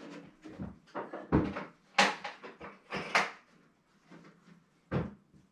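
A hard plastic power-tool case being opened and handled: an irregular run of clicks and knocks, the sharpest about 1.3, 2 and 3 seconds in and again near the end.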